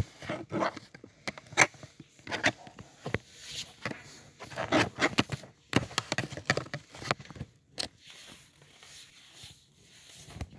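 Irregular scrapes, taps and rustles as a pop-it fidget bracelet and its card packaging are handled.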